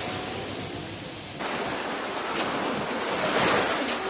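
Steady rushing of wind outdoors, growing brighter and a little louder about a second and a half in.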